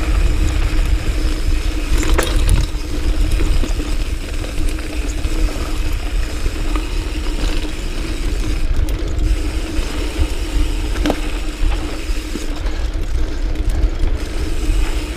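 Diamondback Sync'r hardtail mountain bike coasting down a rough, rocky trail: the rear hub's freewheel buzzes steadily, with a heavy rumble from tyres and wind on the camera. The bike knocks sharply over rocks about two seconds in and again near eleven seconds.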